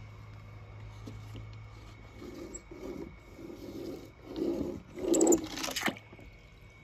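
A small die-cast toy car with paint-covered wheels is rolled back and forth over paper in a run of short scraping strokes. About five seconds in comes a louder splash-like burst as a toy goes into a tub of water.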